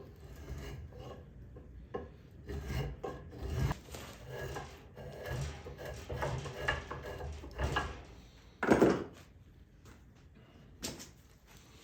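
Hand tool scraping and shaving a wooden axe handle in irregular strokes, with one louder, longer stroke about nine seconds in.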